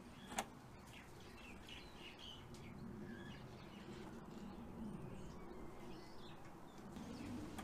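Faint birds chirping now and then over quiet outdoor background noise, with one short click about half a second in.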